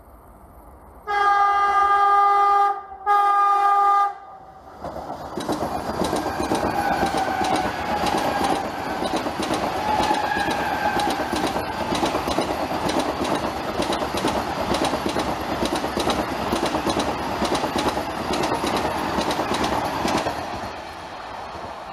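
Electric high-speed train set (Train 18 / Vande Bharat Express) sounding two horn blasts, the first longer than the second, then rushing past at speed with a steady rumble and rhythmic clickety-clack of wheels over rail joints, which falls away near the end as the train clears.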